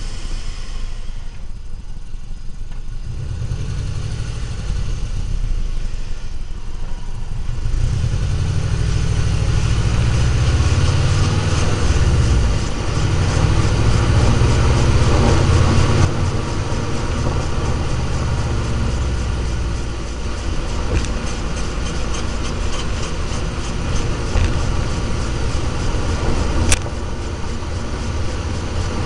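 Subaru running: engine and road noise, with the low rumble growing louder about eight seconds in, and a single sharp click near the end.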